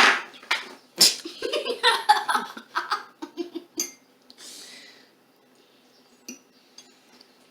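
A child's voice making short, breathy sounds and giggles, with a sharp breathy burst at the start; it goes quiet after about five seconds.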